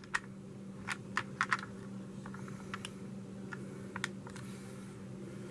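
Light, irregular plastic clicks and taps from a Trackmaster toy diesel engine being handled and turned in the fingers, over a faint steady hum.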